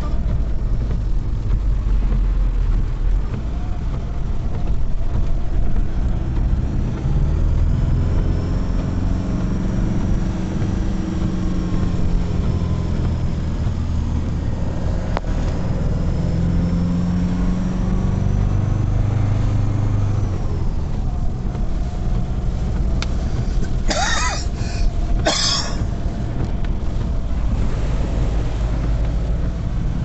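Car driving on a wet road, heard from inside the cabin: a steady low engine and tyre rumble whose pitch drifts up and down. Two short, harsh noises about a second apart come near the end.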